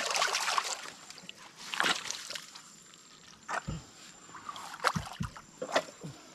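Shallow muddy water splashing and sloshing in irregular bursts as hands push the bottom edge of a net trap into the riverbed, with a few dull thumps among them.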